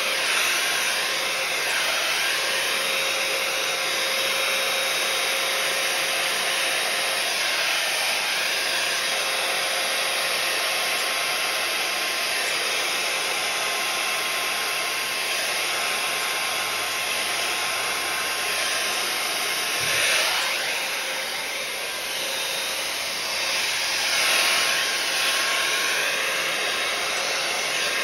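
Small handheld hot-air blower (heat gun) running steadily, blowing air over wet acrylic pour paint, with a couple of brief swells near the end.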